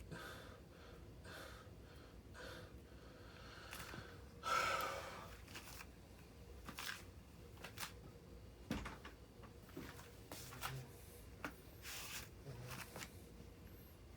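Faint handling of a model airplane's packaging: scattered small clicks and rustles, with one louder rustle about four and a half seconds in.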